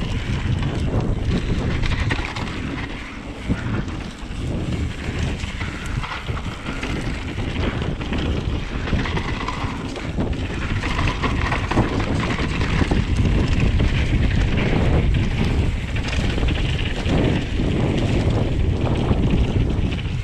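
Wind rushing over the microphone while a Vitus Sommet full-suspension mountain bike rides fast down a rough trail, its tyres and frame rattling and knocking over the bumps.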